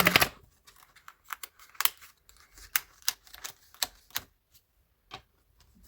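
About a dozen irregular light clicks and taps from hands handling a disc-bound planner's pages and parts.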